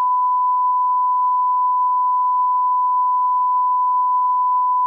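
Censor bleep: a single steady, unwavering beep tone edited over the soundtrack to blank out what was being said.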